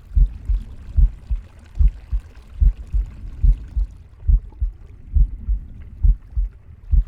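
Heartbeat in a steady lub-dub rhythm: low double thumps a little more than once a second, with a faint hiss behind them that thins out about four seconds in.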